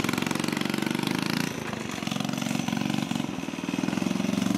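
Custom fat-tyre Honda Chaly's small single-cylinder four-stroke engine running with a rapid, even exhaust beat as the bike pulls away. The beat eases a little in the middle and picks up again near the end.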